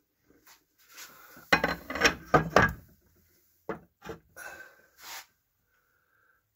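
Knocks and clatter of tools being handled and put away in storage, with a run of loud knocks about a second and a half in, then a few lighter clicks and knocks.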